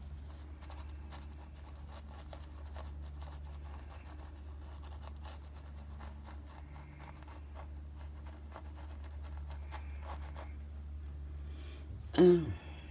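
Paintbrush strokes scratching and dabbing on canvas, many short strokes over a steady low hum. About twelve seconds in comes a brief, loud sound falling in pitch.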